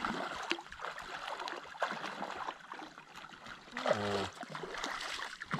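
A person and a dog wading through shallow water, with irregular splashing and sloshing of the water around their legs. About four seconds in there is a brief low voice sound.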